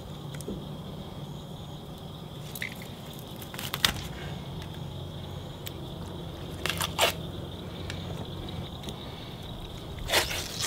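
Catfish skin being pulled off with pliers: a few short crunching, tearing sounds and clicks over a steady low hum.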